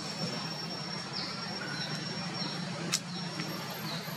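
Steady low outdoor hum, with a sharp click about three seconds in and a few faint, short high chirps that fall in pitch.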